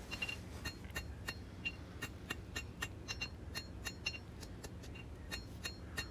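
Light hand-hammer blows on a hot steel knife blade over the anvil, about three to four strikes a second with a brief metallic ring, planishing out hammer marks while dressing the blade's spine flat.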